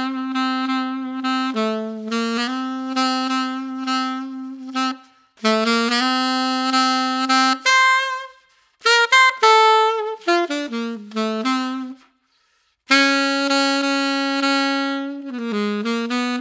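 Alto saxophone played unaccompanied in a jazz style: phrases of long held notes and a quick run of short notes, separated by brief pauses.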